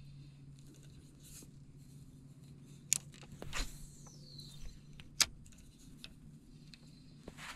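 A cast with a spinning rod and reel: a sharp click, then the swish of the rod and the line zipping off the spool with a falling whine, then another sharp click as the bail snaps shut. A steady low hum runs underneath.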